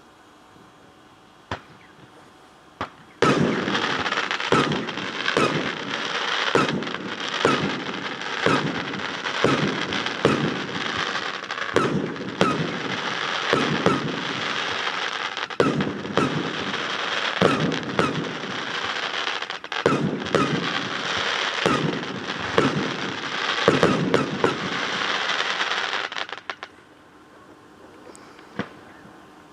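Fireworks display: after a lone bang, a barrage of sharp bangs about once a second over dense crackling sets in about three seconds in. It stops suddenly a few seconds before the end, followed by one last pop. The sound is odd because it echoes off a metal hangar.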